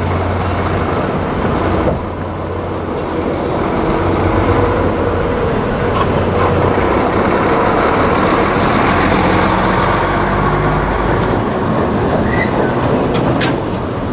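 D51 498 steam locomotive pulling slowly away, working steam, with a few sharp clanks from the running gear and rails.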